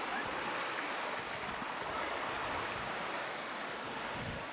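Whitewater rushing steadily down a water-ride channel, an even, unbroken rush of splashing water.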